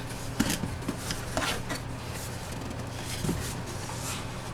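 Cardboard and plastic packaging being handled as a collectible box is opened: scattered rustles and light taps, a few each second.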